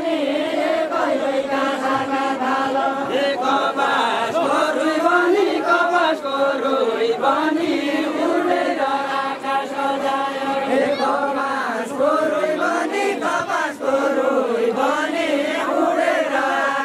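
A group of men singing a Deuda folk song together in a chant-like unison, the sung phrases rising and falling and repeating.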